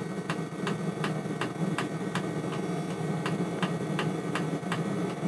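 Webasto diesel coolant heater running just after lighting: a steady hum from its combustion air fan with sharp ticking about three times a second.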